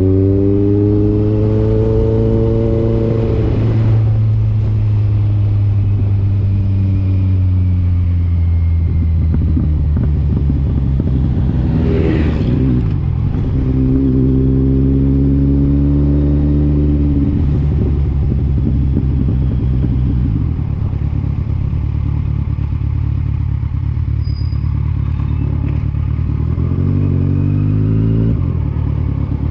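Road vehicle engine running under way, with a steady low drone; its pitch climbs as it accelerates at the start, again about halfway, and briefly near the end. A short whooshing noise comes a little before halfway.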